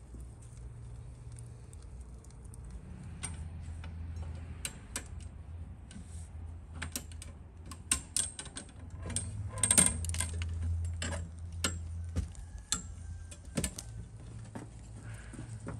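Metal hoist chain clinking and rattling in irregular sharp clicks as it is pulled by hand to lift a heavy load out of a tandoor, thickest in the middle stretch and thinning out near the end.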